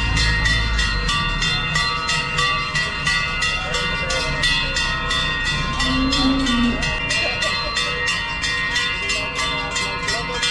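Large cowbells on decorated cows clanging steadily in time with their walking, about three to four strokes a second, over a sustained ringing. A short low moo comes about six seconds in.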